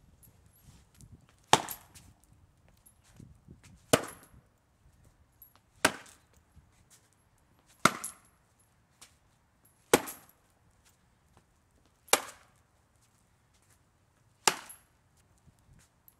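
Seven hard blows of a long-handled tool against a painted panel, struck to damage the painting, about one every two seconds. Each is a sharp knock with a short tail.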